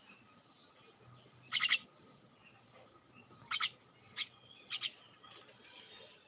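Bird calling in short, sharp chirps: four brief calls, the first and loudest a quick run of strokes about a second and a half in, the last a double chirp.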